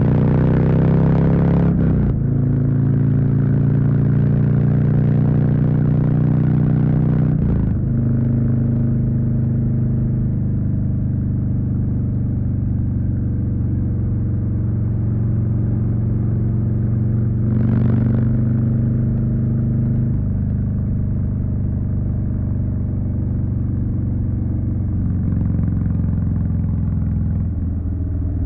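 Harley-Davidson Street Bob's Milwaukee-Eight 107 V-twin running under way, mostly holding a steady note, with short breaks in the sound about two and seven and a half seconds in.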